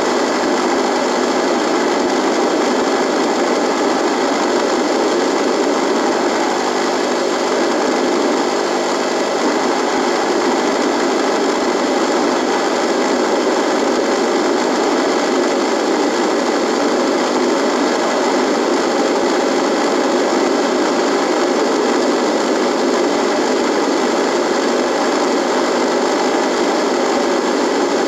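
Radio buzzing: a steady, unchanging static buzz, strongest in the low middle, with faint steady tones running through it.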